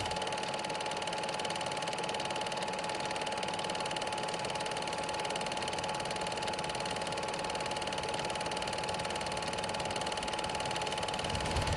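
Film projector running: a steady whir with fast, even clicking and a constant hum tone, fairly quiet.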